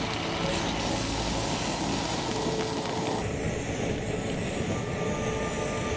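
Sausages sizzling in a pan over a gas canister camp stove, a steady hiss mixed with the burner's rush. About three seconds in the hiss turns duller.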